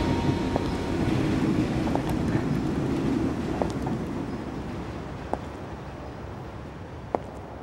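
Rolling suitcase wheels rumbling over a paved walkway and fading away, with a sharp click every second and a half or so.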